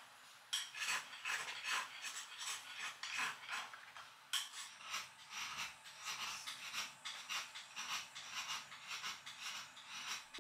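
An ink stick rubbed in circles on a Nachiguro black-slate inkstone, a run of soft scraping strokes at about two a second.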